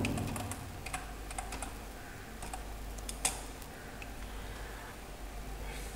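Computer keyboard keys clicking as a command is typed: scattered keystrokes, with one louder click a little past the middle, over a faint steady low hum.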